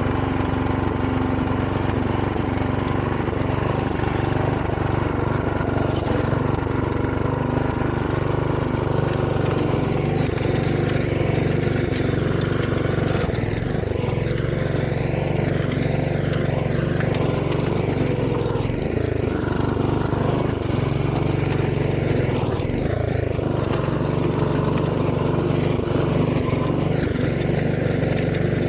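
Engine of a Grillo walk-behind tractor running steadily under load while its rear rotary tiller churns through garden soil.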